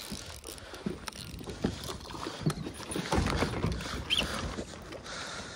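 A small hooked largemouth bass being reeled in and landed into a plastic kayak: irregular clicks, knocks and water splashing, busiest in the middle.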